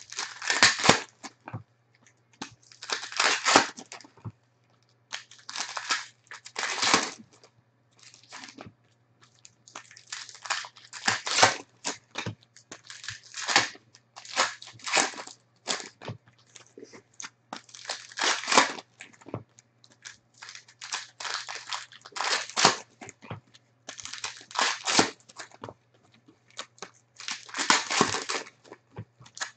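Plastic trading-card pack wrappers being torn and peeled open by hand: irregular bursts of crinkling and tearing, each lasting about a half second to a second, with short gaps between them.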